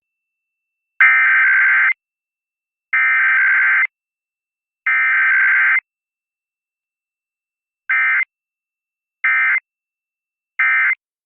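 Emergency Alert System SAME digital data tones: three header bursts of about a second each, about a second apart, then three short end-of-message bursts.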